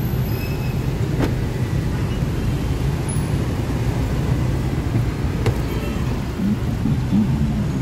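Steady low rumble of street traffic and passing motorbikes, with a faint click about a second in and another about five and a half seconds in.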